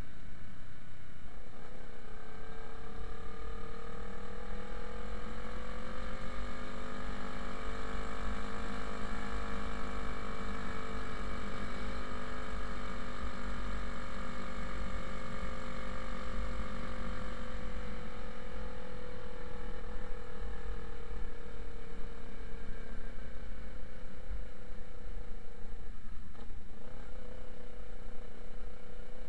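Motorcycle engine running while riding, its note rising as the bike speeds up, holding steady for about ten seconds, then falling away as it slows; about 26 seconds in it dips briefly and climbs again. Wind rumble on the microphone runs underneath.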